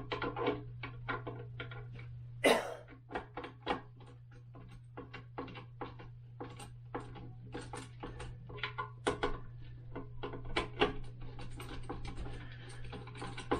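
Hand screwdriver turning a toilet-seat screw: a run of irregular clicks and knocks, with one louder knock about two and a half seconds in, over a steady low hum. The screw is stripping out of its hole.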